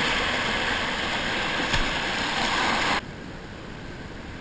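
Whitewater rushing and splashing around a kayak running a rapid, with one brief knock a little before halfway. About three seconds in it cuts off abruptly to a much quieter, faint low rush of calm water.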